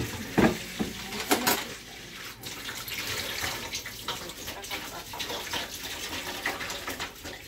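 Kitchen tap running into a sink in a steady stream, with two short knocks in the first second and a half.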